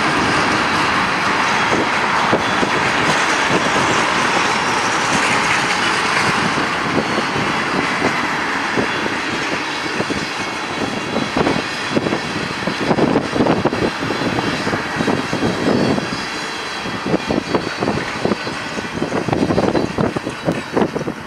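Freight train rolling past with a steady rush of wheels on rail that thins out after the first several seconds. Gusty wind buffets the microphone in irregular bumps, more and more through the second half.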